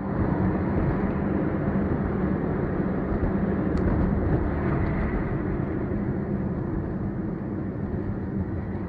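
Steady road and engine noise of a moving car on a snowy highway, heard from inside the cabin.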